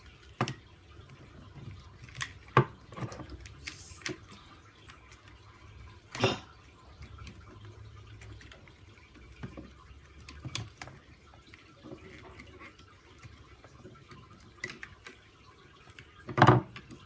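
Irregular sharp clicks and short scrapes of a flathead screwdriver prying stuck-on electronics off a plastic RC car chassis, with a few louder snaps, the strongest near the end.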